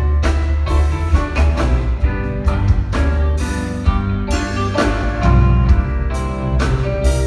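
Rock band playing live through a theatre PA system: a drum kit keeping a steady beat under electric guitars, keyboards and electric bass, with the bass the loudest part. There are no vocals in this passage.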